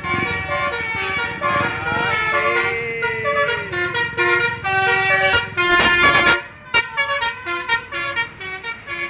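Bus 'telolet' musical horn playing a tune: chords of steady notes stepping from one pitch to the next. A loud hissing rush cuts in for about a second, about six seconds in, and the notes turn short and choppy toward the end.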